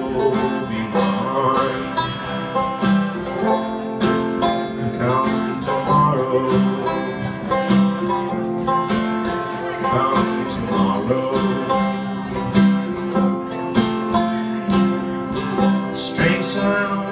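Acoustic guitar and banjo playing together live, an instrumental passage of a slow folk song between sung lines, with the banjo picking over the guitar's chords.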